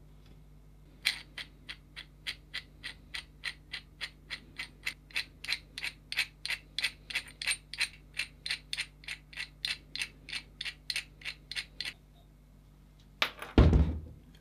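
Steady metallic clicking from the restored 1930s Adriance adjustable wrench being worked by hand, about three or four clicks a second, stopping about twelve seconds in. Near the end comes one loud, heavy thud.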